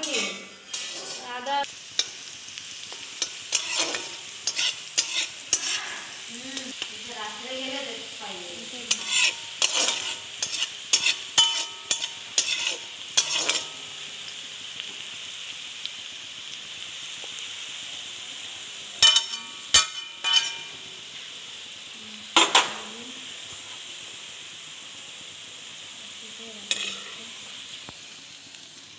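Sliced onions sizzling in hot oil in a pan, with a steady frying hiss throughout. A spatula scrapes and knocks against the pan as they are stirred, in quick runs through the first half and again a little past the middle.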